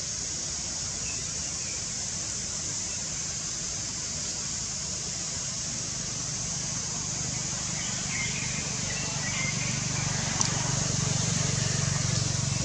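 Outdoor ambience: a steady high hiss with a low hum that grows louder in the second half, faint short chirps about eight seconds in, and one small click.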